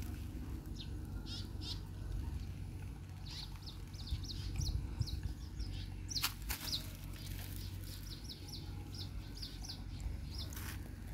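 Small birds chirping, short high chirps repeated in quick runs, over a low steady rumble, with a sharp click about halfway through and another near the end.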